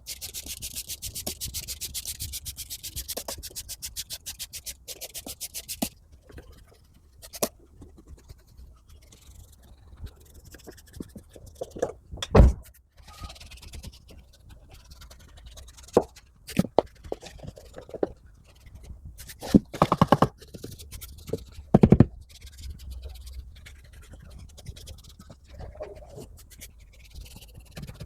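Cleaning brush scrubbing a surface with fast, even strokes for the first several seconds, then scattered scrapes and a few sharp knocks.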